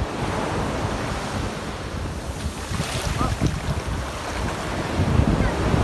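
Small waves washing in over sand at the shoreline, the hiss of the wash swelling about three seconds in, with wind rumbling on the microphone.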